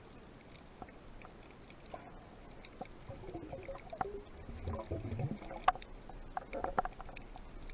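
Water gurgling and sloshing with scattered sharp clicks and knocks, busier in the second half, with a cluster of clicks near the end.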